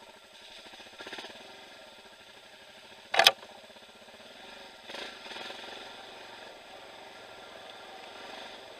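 Dirt-bike engine running at low revs with a rapid, even firing pulse, swelling briefly about a second in and again about five seconds in. A single sharp, loud knock about three seconds in.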